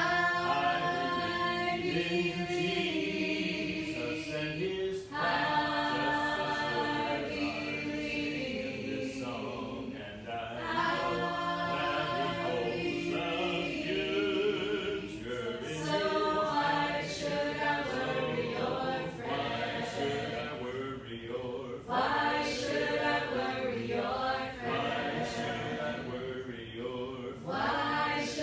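A small mixed group of women and men singing a simple gospel chorus together, unaccompanied, in phrases a few seconds long.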